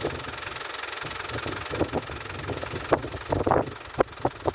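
Small off-road 4x4's engine running under load on a snowy hill climb, with a string of short, sharp revs in the second half.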